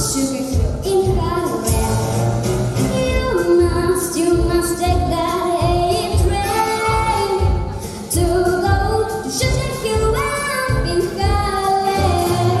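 A woman singing a swing jazz song over a band accompaniment with a steady beat.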